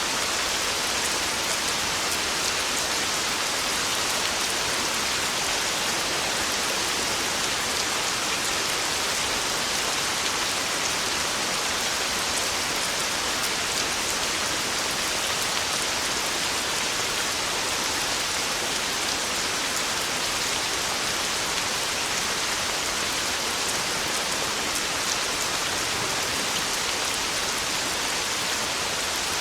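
Heavy rain falling steadily, a dense even hiss of drops with fine patter on a roof.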